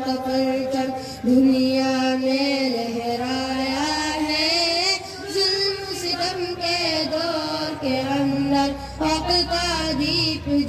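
A group of boys singing an Islamic gojol (devotional song) together into microphones over a PA system, with long held, wavering notes that glide between pitches.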